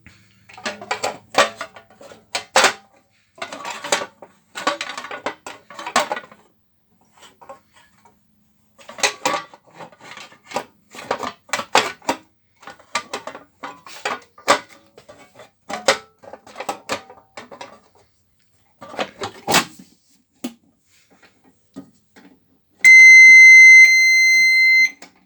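Munford and White CPB2 keyswitch alarm panel: a long run of sharp clicks and rattles in clusters, then near the end a steady high-pitched electronic alarm tone for about two seconds that drops in volume partway through.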